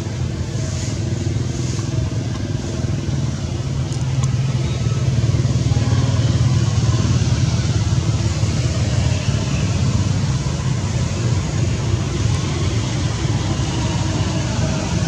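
A steady, loud low rumble like a motor engine running, swelling slightly a few seconds in and holding steady.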